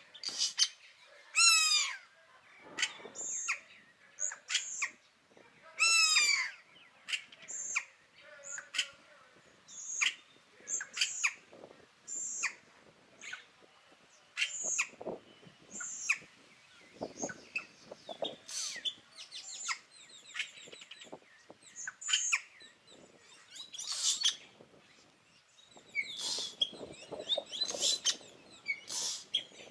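Yellow-rumped cacique (arrendajo lomiamarillo) singing: a varied run of short whistles, chatters and clicking notes, some falling in pitch, coming in quick phrases every second or so with brief gaps between.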